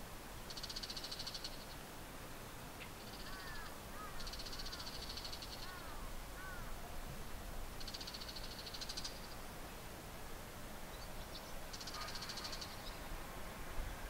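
Male Bull-headed Shrike giving four harsh, rasping calls, each about a second long and a few seconds apart. The calls are the kind the recordist takes for a territorial dispute between two males or a warning call at him.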